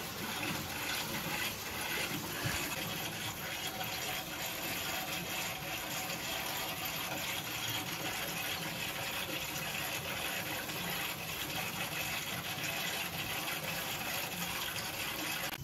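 Water and air gushing steadily through a hot-water boiler's piping and purge valve during a power purge, as trapped air is driven out of the system.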